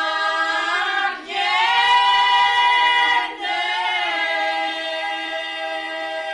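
Women's folk chorus singing long, held notes together in several voices, with two short breaks for breath, about a second in and again past three seconds.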